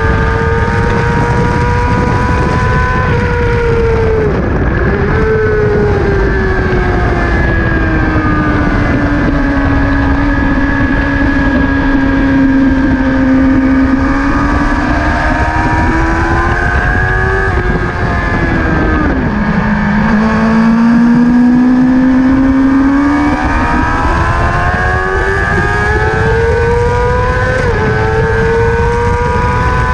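Motorcycle engine at speed on a lap. Its pitch drops sharply as the bike slows, runs low and steady through a long stretch, then climbs in a series of rising steps through the gears. A steady rush of wind over the microphone runs underneath.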